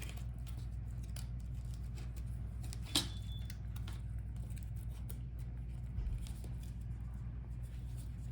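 Small handling noises as laptop display parts are worked by hand: one sharp click about three seconds in, a soft bump near six seconds and faint scattered ticks, over a steady low hum.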